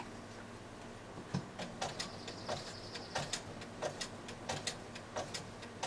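Computerized sewing machine stitching slowly on its low speed setting through knitted fabric: a run of soft clicks from the needle mechanism, two or three a second, starting about a second and a half in over a faint motor hum.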